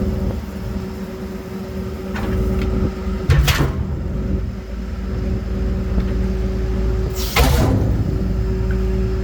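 DAF 55 garbage truck running: a steady low mechanical hum with a steady whine over it. It is broken twice by a short hiss of air, about a third of the way in and again about three-quarters of the way in.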